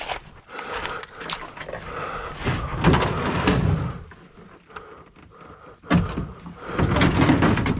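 Plastic sea kayak hull scraping and grinding over barnacle-covered rocks as it is dragged, in two long scrapes with small knocks between.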